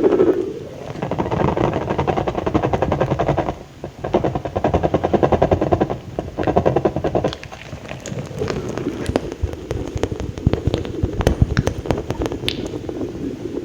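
ASMR mouth sounds close to the microphone: runs of very rapid clicking and smacking lasting a few seconds each, with short breaks, then slower separate clicks in the second half.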